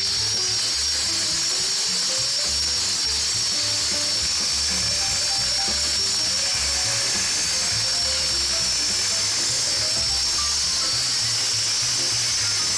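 Background music with a stepping melody and a pulsing bass, over the steady high whine of a power cutter cutting a concrete deck.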